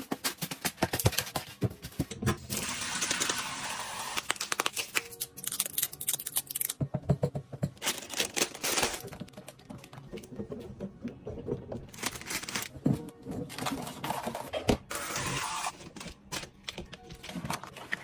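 Rapid clicks, knocks and rustling of objects being handled and set down, with stretches of crinkling, hissy noise.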